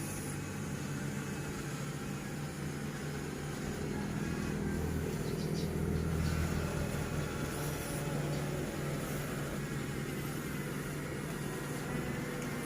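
Electric drive motors of a Huina 1569 RC excavator running with a steady hum, which swells for a few seconds in the middle.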